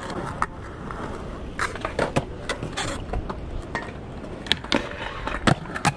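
Skateboards rolling on concrete, wheels giving a steady rumble, with several sharp clacks of boards and trucks striking the ground and rail, the loudest in the last two seconds.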